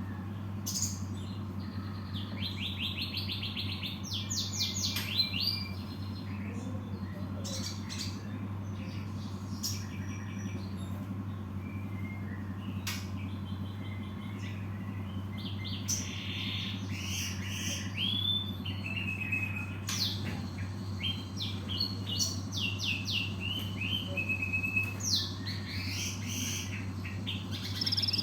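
Cinereous tit (gelatik batu) calling in bursts of quick, high chirps strung in rapid trains, with short pauses between bursts. A steady low hum runs underneath.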